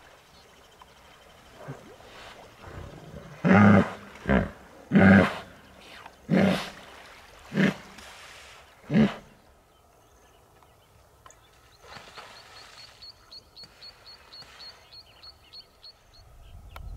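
Hippopotamus calling: a series of about six loud, deep grunting honks, one every second or so, given at the disturbance in its waterhole. Near the end a faint, rapid, high ticking follows.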